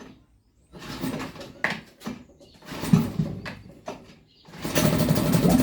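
Mariner 3.5 outboard being pull-started on full choke: a couple of rasping pulls on the recoil starter, then near the end the engine catches and keeps running steadily. It is a cold start after a carburettor clean, on an engine left unused for about four years.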